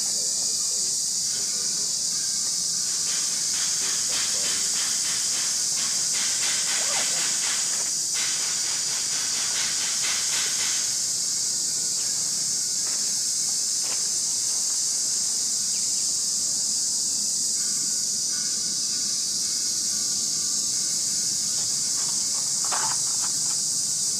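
Steady, high-pitched insect chorus, with a faster ticking layer joining for several seconds in the first half.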